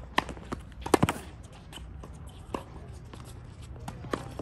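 Tennis balls struck by rackets in a rally: several sharp pops, the loudest pair about a second in, with faint footsteps on the hard court.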